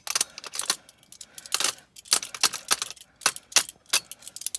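Irregular sharp metallic clicks and clatter of small hand tools and loose metal parts being handled, a dozen or more separate ticks and knocks with short gaps between them.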